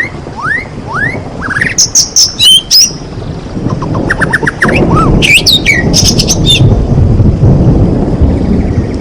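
White-rumped shama (murai batu) singing: a run of rising whistles, then loud, sharp chirps and trills. A heavy low rumbling noise builds under the song from about halfway.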